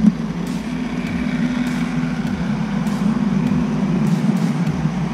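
H0-scale model train running: an electric locomotive and its cars give a steady motor-and-wheel hum, with light clicks as the wheels pass rail joints.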